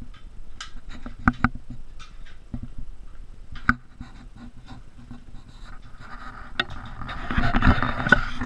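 Irregular clicks, knocks and scrapes of handling, with a louder stretch of scraping and thumps about seven seconds in.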